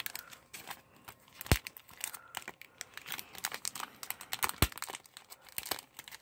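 Crinkling and rustling of a toy craft kit's clear plastic packaging and card backing being handled, with two sharp clicks, about a second and a half in and again about three seconds later.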